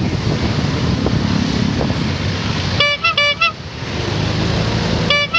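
Motorcycle engine running with road noise in traffic, and a vehicle horn giving a quick run of three or four short toots about three seconds in, with another run starting near the end.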